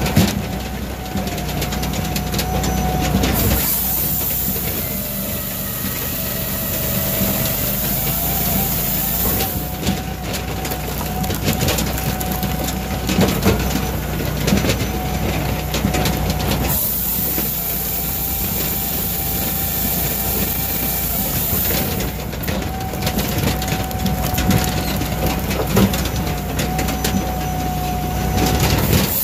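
Brute Force 14-24 firewood processor running under its 26.5 HP Kohler EFI engine, with a steady engine hum and a steady hydraulic whine, cutting and splitting logs. Twice a stronger hiss rises and holds for several seconds as the saw bar cuts through a log, and wood knocks as rounds are pushed through the splitting wedge.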